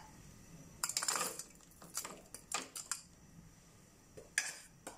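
Wooden spatula scraping and tapping against a wok as a thin chilli sauce is stirred, in a scattered run of short scrapes and knocks.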